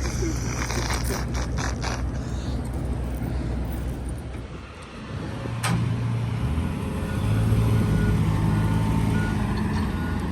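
Heavy vehicle engines running steadily at a dump, their note dipping and changing about halfway through. From about two-thirds of the way in, a vehicle's backup alarm beeps in a regular pattern, about two beeps a second.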